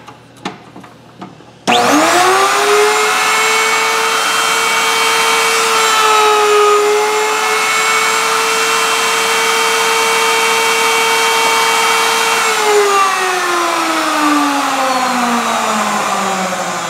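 A table-mounted router starts with a quick rising whine, runs at steady speed while a test piece is fed past its full-radius bit, then is switched off and spins down with a steadily falling pitch about twelve seconds in. A few small clicks come just before it starts.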